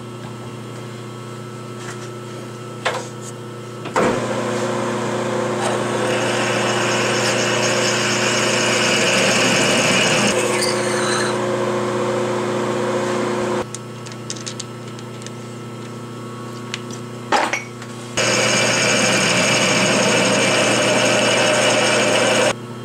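Metal lathe running while a twist drill in the tailstock chuck bores a counterbore into the end of a chrome-moly steel tube. The motor hums steadily, and a loud, high cutting noise comes in two stretches of several seconds, with a quieter pause and a single click between them.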